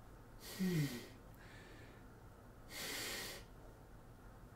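A man breathing audibly in a pause of an emotional monologue: a short voiced sigh that falls in pitch about half a second in, then a longer breath near three seconds in.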